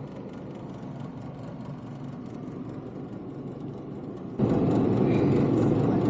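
Steady hum of refrigeration machinery. About four and a half seconds in it turns suddenly much louder, into a dense rushing noise of the condensing unit and its fan running close by.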